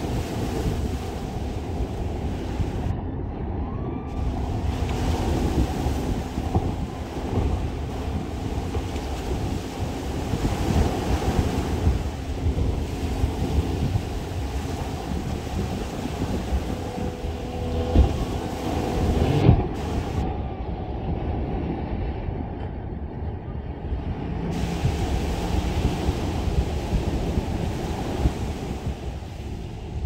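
Small waves breaking and washing up a sandy shore, with wind rumbling on the microphone. Two brief knocks on the microphone come a little past the middle.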